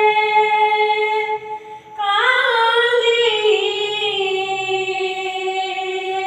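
A young boy singing an Odia bhajan unaccompanied. He holds one long note, breaks off briefly about a second and a half in, then takes up another long held note that wavers before settling.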